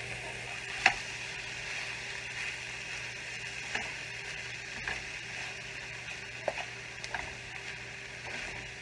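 Stir-fry of vegetables and chicken sizzling steadily in oil in a hot pan, with a few short knocks of a utensil against the pan as it is stirred, the loudest about a second in.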